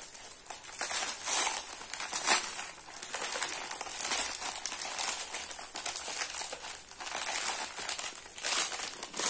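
Newspaper wrapping and clear plastic pouches crinkling and rustling in irregular handfuls as a parcel is unwrapped by hand.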